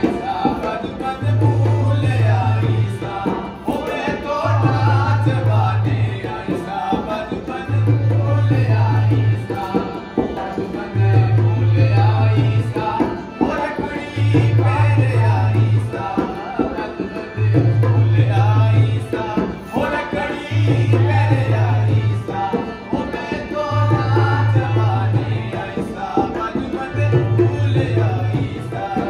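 Rajasthani folk music for a dance: a hand drum playing a beat with a melody over it, and a deep low tone held about a second and a half that comes back roughly every three seconds.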